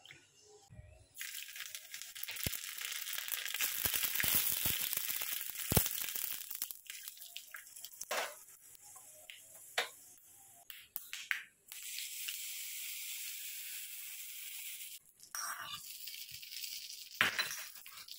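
Hot oil sizzling and crackling in a small iron kadai as tempering spices, dried red chillies and curry leaves go in. It starts suddenly about a second in, with many sharp pops and spatters, eases off for a few seconds in the middle, then sizzles again.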